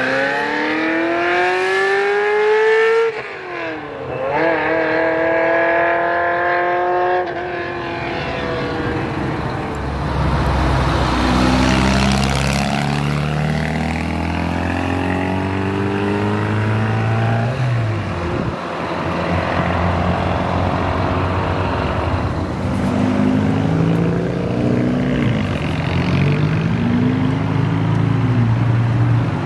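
Sports car engine accelerating hard at high revs, its pitch climbing and then dropping sharply at a gear change about three seconds in before climbing again. After that, more cars pull away with a deeper, lower-revving engine sound and road rumble.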